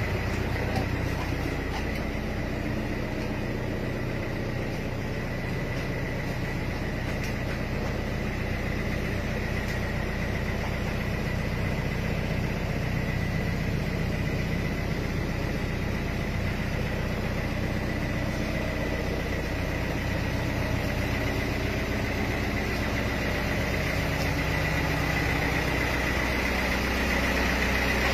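A minibus's engine idling steadily, heard from inside the passenger cabin, with a steady high whine over the low hum.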